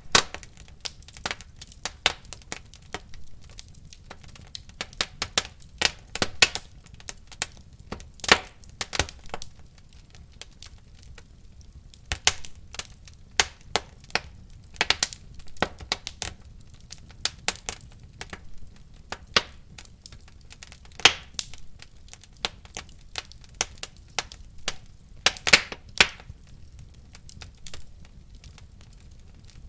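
Wood fire crackling in a fireplace: irregular sharp pops and snaps over a low steady rustle of burning.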